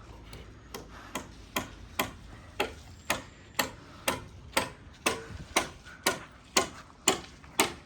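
Steady rhythmic knocking: sharp strikes about two a second, each with a short ring, growing slowly louder.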